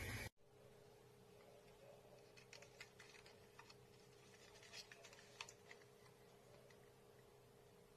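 Near silence: faint steady room hum with a scattering of faint light clicks for a few seconds in the middle.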